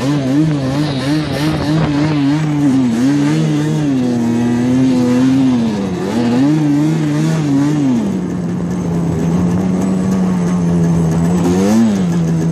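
Motor vehicle engine running under varying throttle, its pitch wavering quickly up and down for the first several seconds, then settling to a steady lower pitch with one brief rev near the end.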